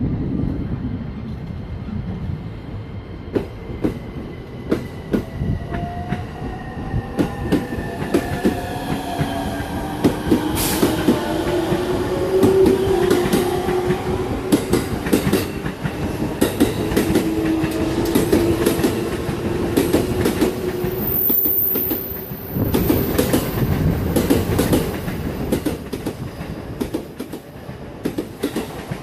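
JR East E231 series 1000 and E233 series 3000 electric multiple units pulling out and accelerating. The traction motors give a whine that rises in pitch as the train gathers speed, and the wheels click over the rail joints.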